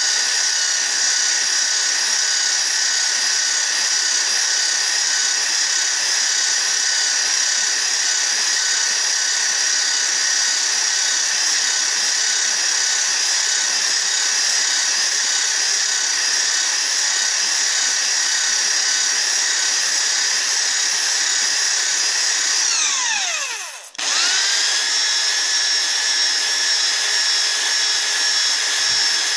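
Electric drill spinning a hone on a long rod inside a small model steam engine cylinder bore, running with a steady high whine. About 23 seconds in it winds down, stops for a moment and spins straight back up to speed.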